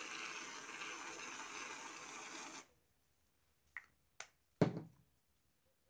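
Aerosol can of whipped cream spraying with a steady hiss that cuts off abruptly about two and a half seconds in. Then come two light clicks and a single sharper, louder knock.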